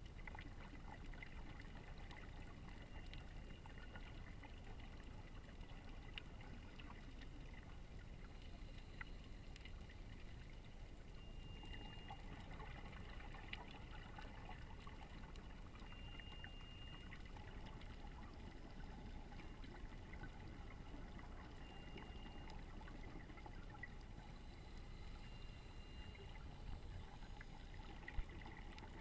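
Faint underwater ambience picked up through an action camera's waterproof housing: a steady low rumble with scattered small clicks and crackles, and a few brief, faint high tones.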